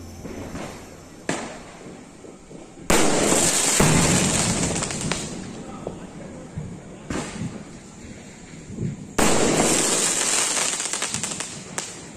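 Aerial firework shells bursting overhead: two loud bangs about six seconds apart with smaller pops between. Each bang is followed by a long, fading crackle of many small reports as the stars burn out.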